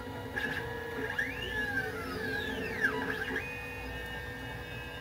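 CNC 3040 T-D router's stepper motors turning its threaded lead screws during an air cut, with no workpiece on the table. Their whine sweeps up and down in pitch several times as the axes speed up and slow down, over steady tones, then settles about three and a half seconds in.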